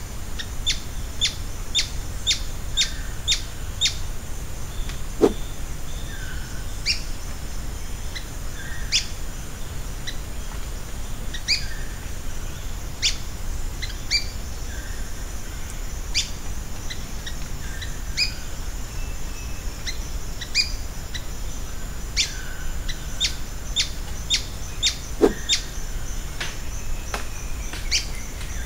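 Ochre-bellied flycatcher (abre-asa) calling: short, sharp, high notes that drop steeply in pitch, in a quick run of about two or three a second at first, then repeated more sparsely.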